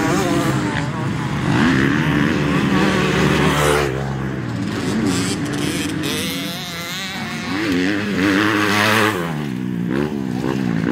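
Motocross motorcycle engines racing, revving up and falling back again and again as the bikes accelerate and back off around the track.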